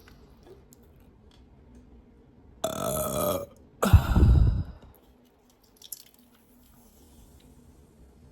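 A person burping twice, about a second apart. The second burp is louder and deeper. These are soda burps from a can of root beer chugged in one go.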